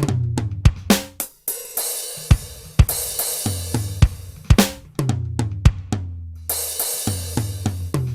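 Alesis SR-16 drum machine sounding a custom kit of dry toms, kick, snare, hi-hats, ride and crash, played by hand on its pads in an irregular drum groove. Several tom runs step down from high to low, with crash cymbal hits ringing over them.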